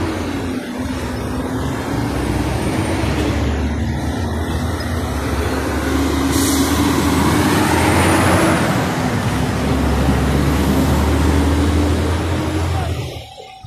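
Close-range traffic noise from a truck and cars idling and creeping in a jam: a steady low engine drone with a hiss that swells about seven to eight seconds in. The sound drops away abruptly near the end.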